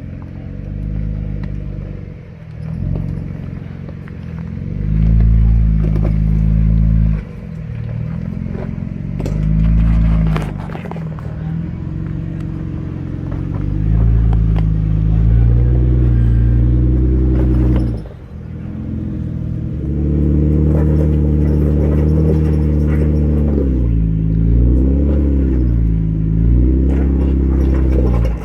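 Jeep Wrangler engine crawling over rocks, the throttle pushed on and let off again and again, with surges of revs that rise and fall near the end. There is a little clatter and scraping under the engine.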